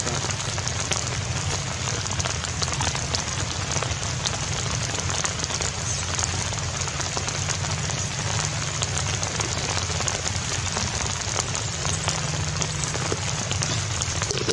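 Steady rain falling: an even hiss with many small drop hits.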